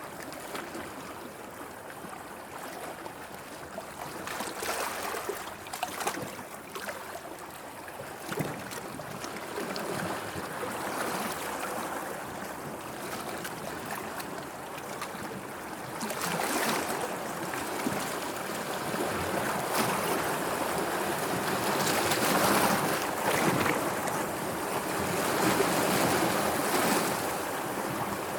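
Sea water washing and splashing in uneven swells, with a few sharp splashes, growing louder about halfway through.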